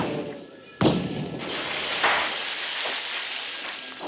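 A loud gunshot-like bang blasts a soda vending machine about a second in, followed by a couple of seconds of dense clattering as cans and debris pour out onto the hard floor, fading near the end.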